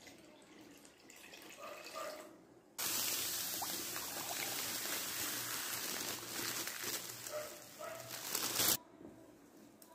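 Water poured from a glass jug into an empty enamel pot, then, about three seconds in, granulated sugar poured from a plastic bag into the pot of water and apple pieces: a loud, steady hiss that cuts off suddenly near the end.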